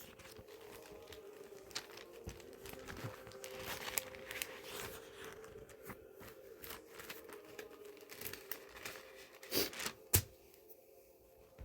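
Rustling and crinkling handling noise, with scattered small clicks and two louder knocks near the end, over a faint steady hum.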